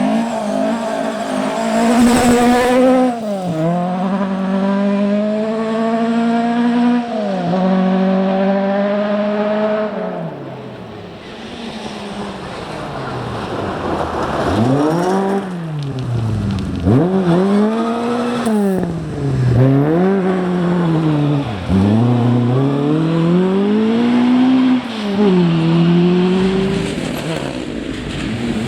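Rally car engine at full throttle, climbing in pitch through two gear changes. After a brief lull it revs up and down repeatedly, coming on and off the throttle through a run of corners.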